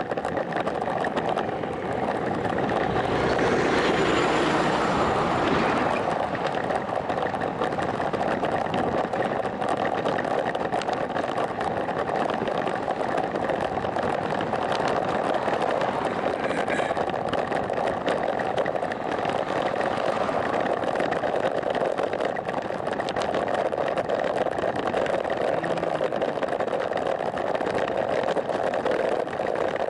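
Steady rush of wind on a bicycle-mounted camera's microphone while riding along a road. A passing vehicle swells and fades about three to six seconds in.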